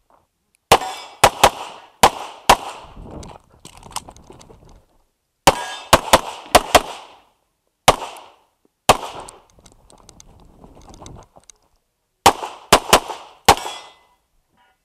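Pistol firing in practical-shooting competition: quick strings of two to five shots, with pauses of one to three seconds between strings, about fifteen shots in all.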